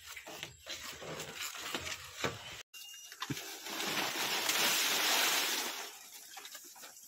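Dried palm fronds rustling and crackling as a large bundle is pulled from a stack and lifted, loudest in the middle seconds and fading near the end. Before that, scattered light knocks and rustles.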